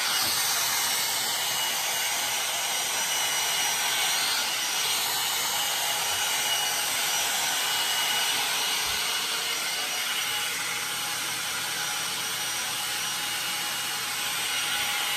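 Hot-air blow dryer brush running steadily while being drawn through long hair: a loud, even rush of air with a faint high whine in it.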